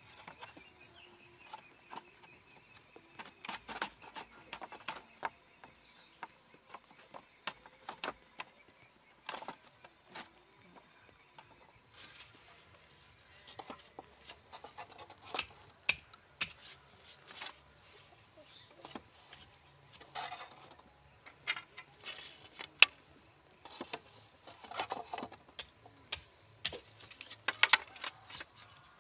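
Split bamboo slats clicking and knocking against each other and the frame as they are picked up and set in place, in irregular light taps with a sharper knock about two thirds of the way through.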